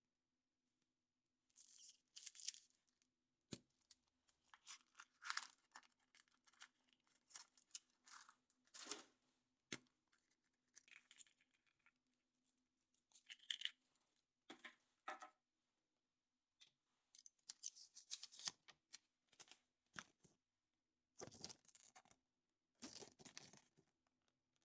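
Wrapping of a Hot Wheels chocolate surprise egg being torn and crinkled open by hand in short bursts, with a few sharp clicks in between.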